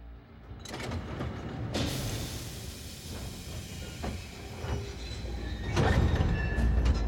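Sound-designed steam locomotive approaching: a loud hiss of steam starting suddenly about two seconds in, a few metallic clanks, then a low rumble that builds toward the end.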